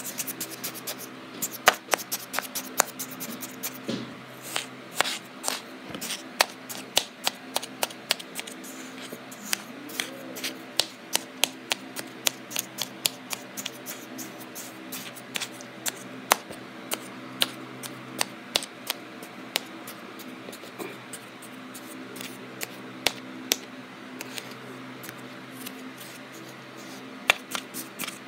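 A metal tool cutting and crumbling a mound of kinetic sand: a run of crisp, irregular crackles and ticks that thins out over the last several seconds, over a faint steady hum.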